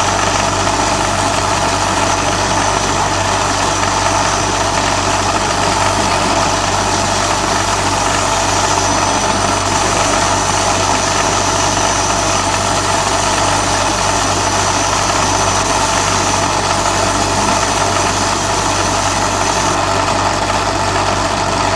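A 20 W CO2 laser marking machine running steadily while it engraves wood, a constant hum and whir of its fans and drive. A thin high whine comes in about eight seconds in and stops about two seconds before the end.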